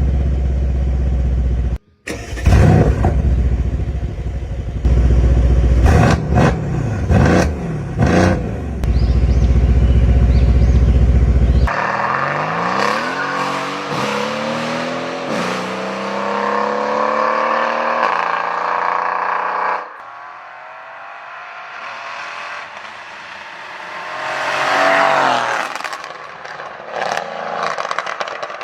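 Mercedes-AMG C63's V8 engine revved hard in repeated blips, deep and loud. It then accelerates through several upshifts, the pitch climbing and dropping back at each shift. Later comes a quieter stretch with one more rising rev near the end.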